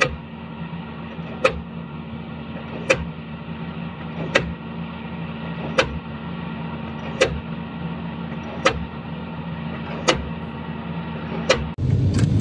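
Diesel pile hammer striking the top of a steel pipe pile as it drives it into the ground, eight sharp blows about a second and a half apart, over the steady hum of the piling rig's engine.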